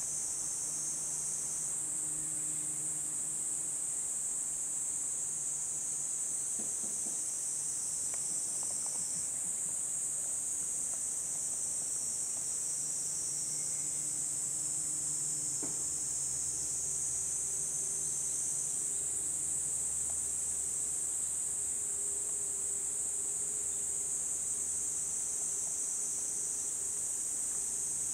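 A steady, high-pitched chorus of singing insects, unbroken throughout, with a faint low hum beneath it.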